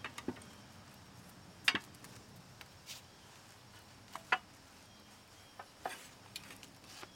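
Large steel pipe wrenches clinking and knocking against a strut's retaining nut as they are set on it to loosen the nut: a few sharp, separate metal clicks, the loudest about a second and a half in and again about four seconds in.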